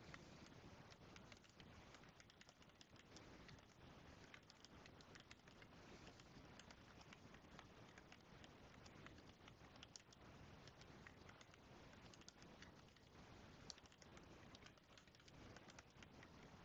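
Faint, irregular clicking of computer keyboard keys being typed, several keystrokes a second.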